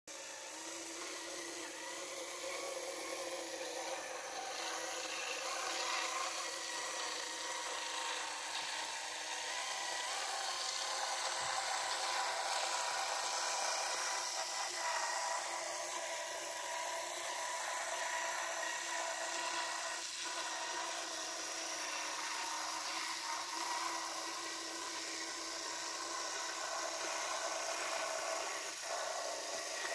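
Small electric motor of an H0f narrow-gauge model diesel locomotive running with a steady whir, its wheels and those of the loaded log wagons rolling and rubbing along the track.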